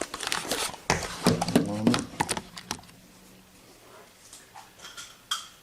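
A man's voice speaking for about two and a half seconds, then a few faint light clicks of small parts being handled.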